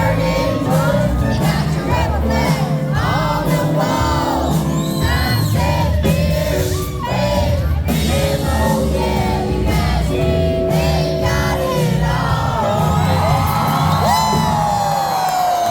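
Live country band playing with a lead vocal, the crowd whooping and cheering along.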